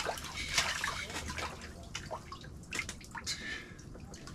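Water splashing and sloshing in an ice-fishing hole as a walleye is hand-landed through it, with irregular splashes and drips.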